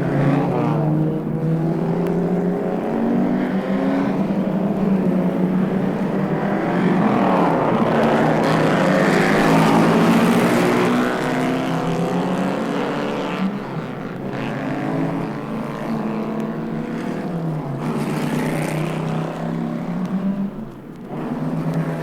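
Stereo sound-effect recording of motor-vehicle engines running and passing, the engine pitch rising and falling several times, loudest about halfway through.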